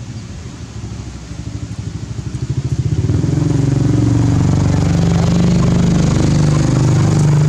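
A small engine running, growing louder over the first three seconds, then running loud and steady.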